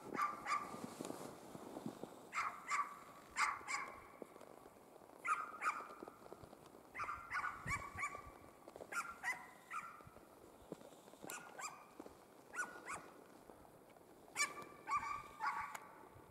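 Drever hound baying as it works a hare's track: short barks in irregular twos and threes, with pauses of a second or two between groups.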